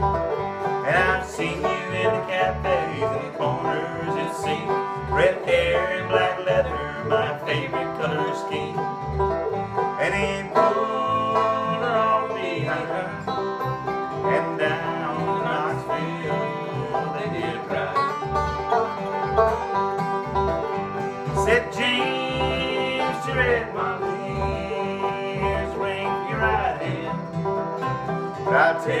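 Bluegrass trio of acoustic guitar, upright bass and banjo playing a driving tune, with the banjo to the fore over a steady plucked-bass pulse.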